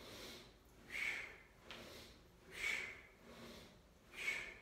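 A man breathing hard in rhythm with cable grapple squat repetitions: a strong, sharp breath about every one and a half seconds, with a weaker breath between each.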